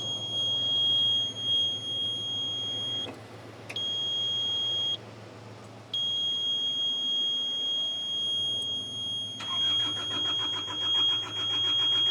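Excavator's warning buzzer sounding a steady high beep that cuts out briefly twice. About nine seconds in, the starter begins cranking the Hitachi EX55UR's diesel engine with a fast, even rhythm, the buzzer still sounding over it.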